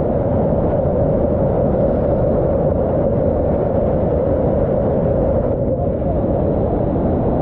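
Loud, steady rush of a whitewater rapid churning right at the camera, mostly low and dull, as the river pours around a kayak pinned against a fallen log.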